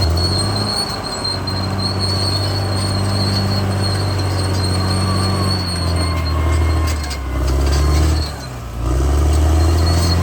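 Caterpillar D6R XL bulldozer's diesel engine running under load, its pitch dipping and recovering several times as the engine works, with a steady high whine above it.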